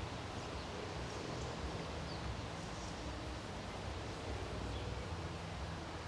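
Steady outdoor background hiss over a low rumble, with a few faint, high bird chirps in the first half.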